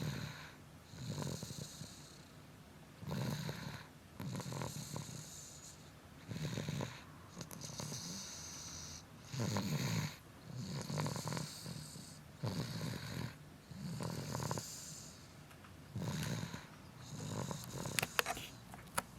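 A two-year-old child snoring loudly in her sleep, a snore on breath after breath, roughly one every second or so. A couple of sharp clicks come near the end.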